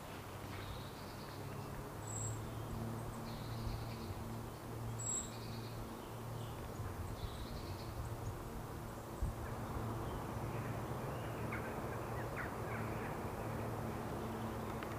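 Woodland ambience with birds calling: short, faint calls through the first half and two brief high chirps a few seconds apart, over a steady low hum.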